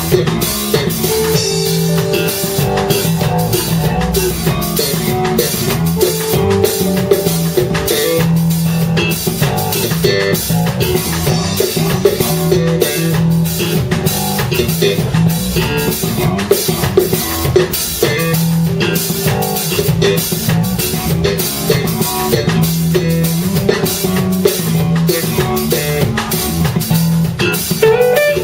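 Live instrumental band playing: a drum kit keeps a steady, busy beat under bass guitar and guitar, with a note bending upward near the end.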